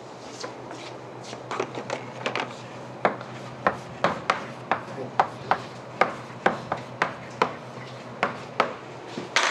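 Chalk writing on a blackboard: sharp taps and short scrapes as letters are written, coming quicker from about three seconds in, over a steady low room hum.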